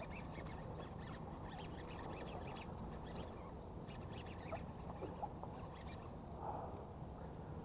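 Faint high chirping and a few light clicks, then a soft splash near the end as a hooked largemouth bass thrashes at the surface near the bank.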